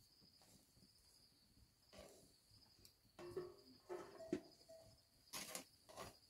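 Crickets chirping steadily, with a metal ladle scraping and clinking against a cooking pot and a metal tray as cooked rice is served out: several clinks and scrapes in the second half, a few of them briefly ringing, the loudest near the end.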